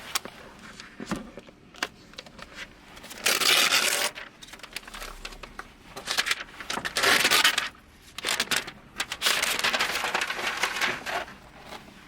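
Laptop packaging being handled and unwrapped: bursts of rustling and scraping, about 3 s in, about 7 s in, and a longer one from about 8 to 11 s, with small clicks and taps between.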